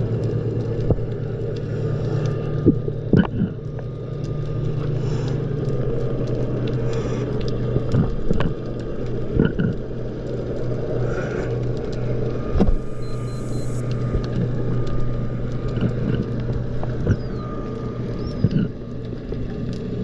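Underwater sound of a boat's engine running, a low steady hum that drops slightly in pitch about six seconds in, with scattered short clicks and knocks.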